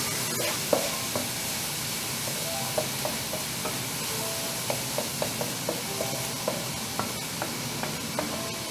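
Chopped onions sizzling in hot oil in a metal pan while a wooden spoon stirs them, its strokes knocking and scraping against the pan in short irregular taps. The onions are being sautéed until soft and transparent.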